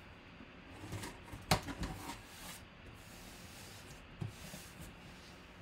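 Hands handling a taped cardboard shipping box: a few short scrapes and knocks on the cardboard and packing tape, the loudest about one and a half seconds in and a smaller one a little after four seconds.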